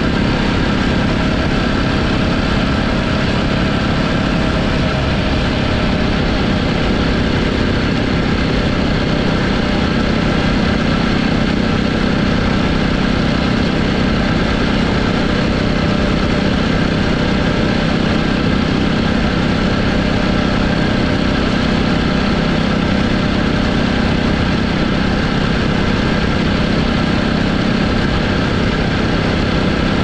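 Jawa Classic motorcycle's single-cylinder engine and exhaust running steadily on the move, at an even pitch with no revving. It is heard close up from a camera mounted low on the bike.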